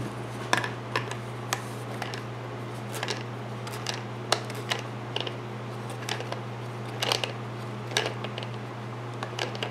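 Irregular light clicks and knocks of hand-tightening the nut onto a tire valve fitted through the wall of a 2-inch PVC pipe, the pipe being handled and turned on a wooden bench, over a steady low hum.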